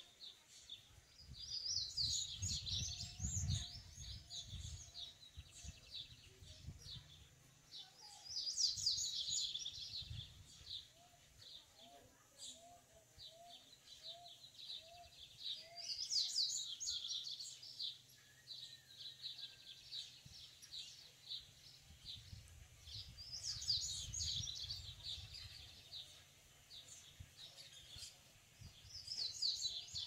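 Male papa-capim seedeater singing: fast, jumbled high song phrases about every seven seconds, with quick high chips running between them. A low rumble lies underneath.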